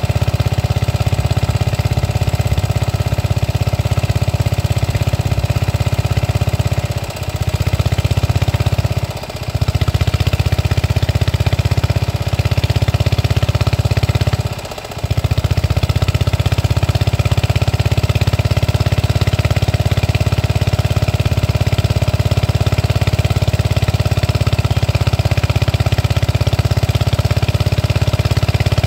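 A small engine running steadily at a constant speed, loud and unvarying, with brief drops in level a few times.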